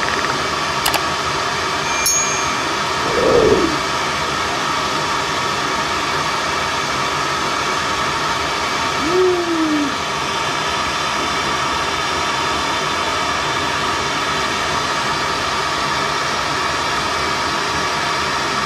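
Rothenberger Superfire 2 hand torch burning MAP gas (a propane, propene and dimethyl ether mix) with a steady hiss as it heats a steel bolt toward red heat. There are two faint clicks about a second and two seconds in, and a brief low rising-and-falling sound about three seconds in.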